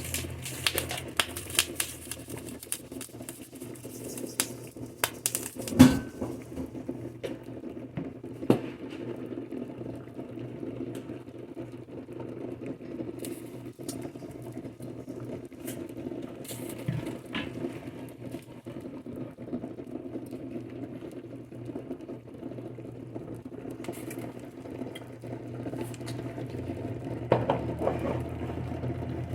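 Chicken drumsticks frying in oil in a pan: a steady sizzle with scattered crackles and spatters over a low hum, and a sharper knock of a utensil or pan about six seconds in.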